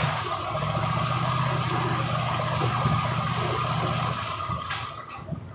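Cub Cadet riding mower's engine running steadily, then shut off about four and a half seconds in and winding down to a stop.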